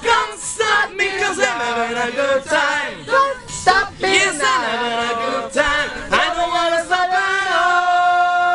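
Amateur karaoke singing: several voices singing together into a microphone, the pitch sliding and breaking, then settling into a long held note about seven seconds in.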